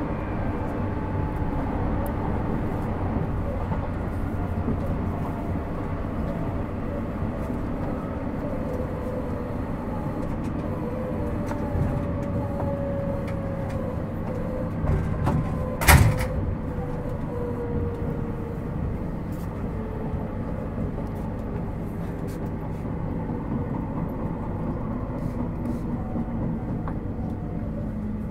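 A JR Hokkaido 721 series 4000 EMU's Toshiba GTO-thyristor VVVF inverter and traction motors heard inside the motor car over the rumble of wheels on rail, the motor tone falling slowly in pitch as the train slows for its stop. A single sharp knock about sixteen seconds in.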